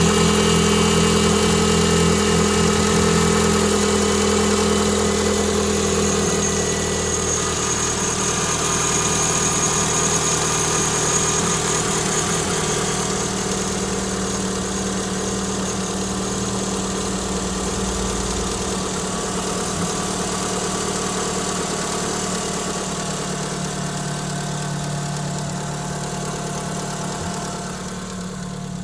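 Renault Clio 182's 2.0-litre four-cylinder engine idling steadily, with a thin high whine over the engine note, the kind of noise the owner suspects comes from a bad water pump. The idle note shifts lower about six seconds in and the sound fades slightly toward the end.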